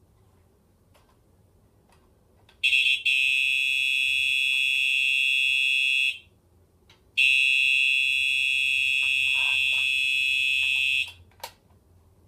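Fire alarm horns sounding a steady continuous tone in two bursts of about three and a half to four seconds with a one-second break between them, set off by a key activation test of a Fire-Lite BG-10 pull station. A short click follows near the end.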